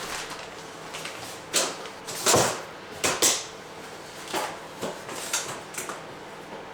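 Irregular knocks and short scrapes of wooden flooring planks being handled and fitted, a handful of them spread unevenly, the loudest about two and three seconds in.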